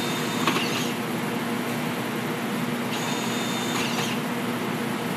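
Milwaukee cordless drill running steadily under load, turning a 1-3/4-inch key-drive bit through a metal explosion-proof junction box. A high squeal from the cutting comes in near the start and again about three seconds in.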